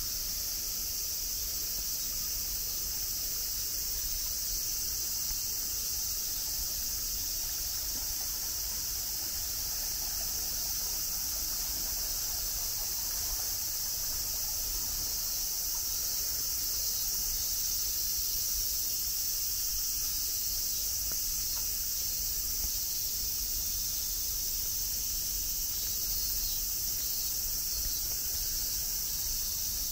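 Steady, unbroken high-pitched chorus of insects, with a low rumble underneath.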